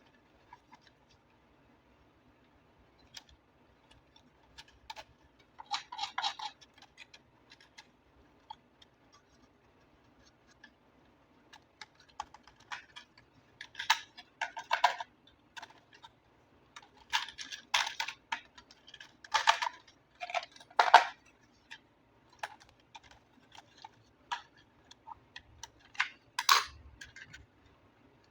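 Hands handling a toy car and its packaging: scattered light clicks and taps, with short rustling bursts about six seconds in, in a busy cluster through the middle, and again near the end.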